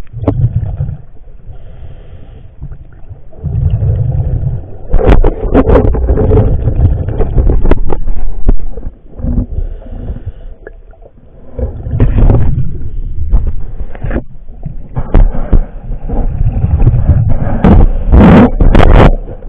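A diver's exhaled breath bubbles rumbling and gurgling past the underwater camera in loud surges every few seconds, with sharp clicks among them.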